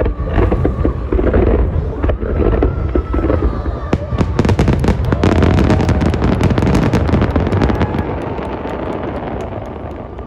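Aerial fireworks bursting over a low rumble, with a dense run of rapid crackling from about four seconds in that thins out near the end.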